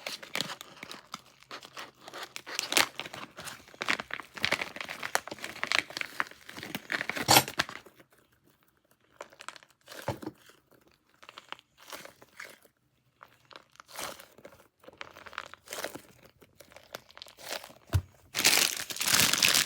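Crunchy squishy toy shaped like a pineapple bun being squeezed and kneaded, giving off dense runs of fine crackling and crunching. The crackle thins to scattered clicks about eight seconds in, then turns loud and dense again near the end.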